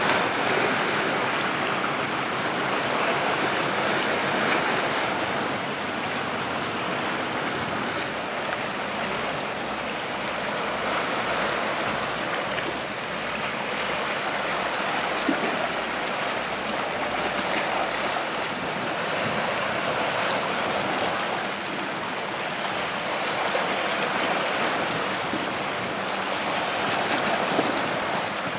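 Steady rushing of wind and water, with wind buffeting the microphone.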